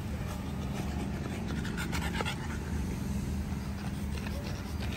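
French bulldog panting, over a steady low hum.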